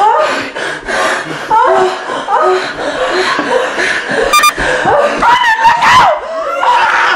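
Wordless human voices: short cries and breathy vocal sounds. There is a brief rattle a little past four seconds, then one loud, longer cry at about five and a half seconds that rises and falls in pitch.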